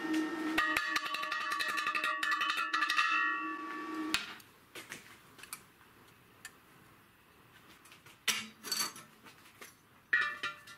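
Welding on a steel gas cylinder: a steady electrical hum with fast crackle for about four seconds that cuts off suddenly. After that, a few short metallic clinks of steel tubes and an aluminium piece being handled.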